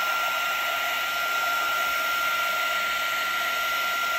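Wagner HT400 heat gun running steadily: a high, even fan whine over a rush of blowing air.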